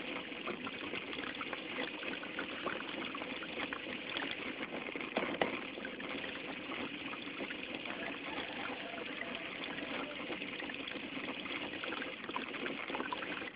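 Water splashing and churning along the hull of a small handmade electric RC boat under way, heard from a camera mounted on board, with a steady crackle of small splashes throughout.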